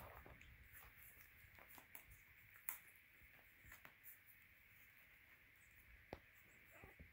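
Newborn boxer puppies suckling: faint, scattered wet clicks and smacks from their mouths at the teats, one a little louder about two and a half seconds in.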